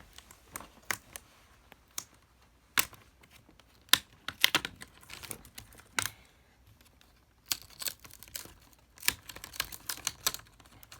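Plastic display bezel of a Dell Precision 3530 laptop being pried off by hand: an irregular series of sharp clicks and snaps as its clips let go.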